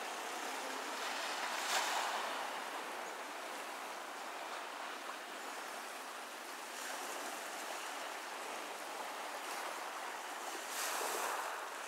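Small waves washing on a pebble shore, a steady hiss of surf that swells louder about two seconds in and again near the end.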